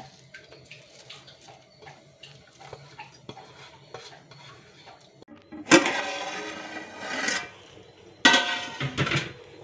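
Metal ladle stirring a large metal pot of broth: light clinks, then two loud grating scrapes of metal on metal, the first a little past halfway and the second near the end.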